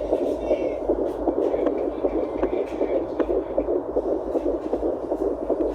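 Home fetal Doppler picking up a fetal heartbeat at about 10 weeks of pregnancy: a fast, even pulsing beat, roughly three a second, over a steady hiss and low hum from the device's speaker.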